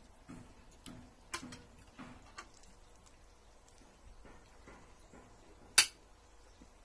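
Spoons and forks tapping and scraping on plates in a run of light clicks, with one sharper clink about six seconds in.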